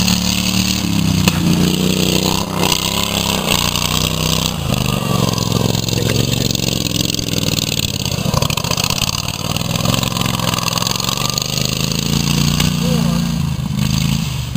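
Racing lawn mower engines running hard, their pitch stepping up and down as they rev and ease off.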